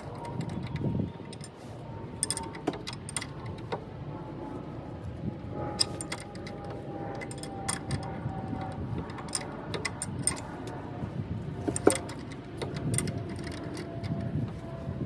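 Irregular sharp metallic clinks and taps of a hand wrench and tools on the front suspension bolts of a pickup truck, over a steady low rumble. A faint high tone drifts slowly downward in pitch underneath.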